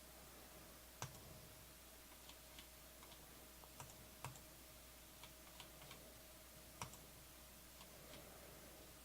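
Near silence with about a dozen faint, irregularly spaced computer mouse clicks over a steady faint electrical hum, as a list is randomized on screen.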